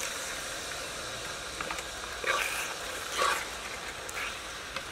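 Fish pieces in curry paste sizzling in a metal pot as a spoon stirs them. Two short, louder sounds break in about two and three seconds in.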